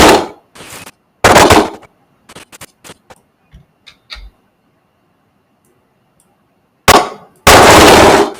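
Kung fu fight sound effects played back from an editing timeline: loud, sudden noisy hits and whooshes, one about a second in and two near the end, with a few short clicks between and a silent stretch in the middle.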